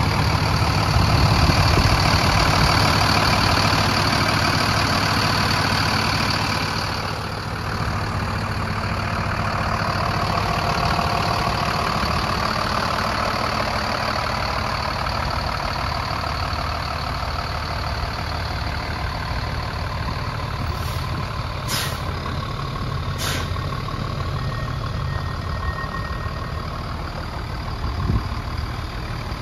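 Freightliner truck's Mercedes-Benz diesel engine idling steadily, louder for the first several seconds. Three short, sharp clicks a little past the middle.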